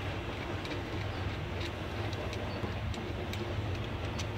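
Scattered light clicks and taps of a cable's ring terminal being fitted by hand onto a battery terminal, over a steady low background hum.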